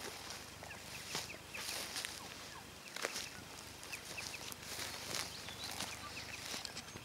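Footsteps crunching through dry grass and leaf litter, a few slow, irregular steps, with faint bird chirps scattered around them.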